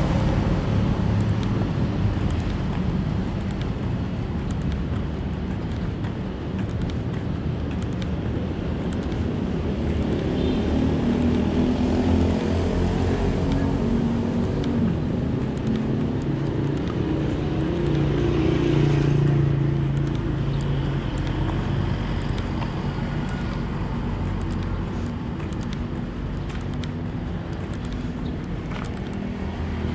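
A motor vehicle running along a road: a steady engine hum over road noise, its pitch shifting a little about halfway through.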